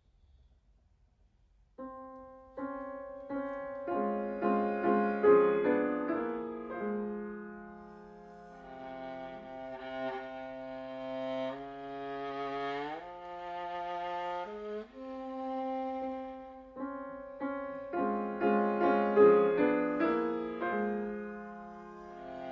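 Viola and piano playing, entering about two seconds in after near silence: repeated piano chords under sustained viola notes, with the viola sliding upward in pitch near the middle.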